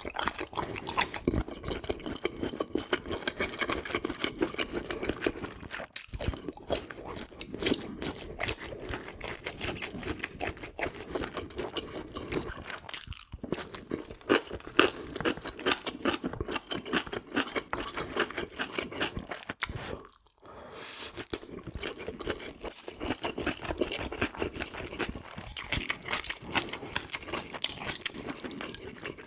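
Close-miked eating: steady chewing and crunching of food in the mouth, broken by three short pauses.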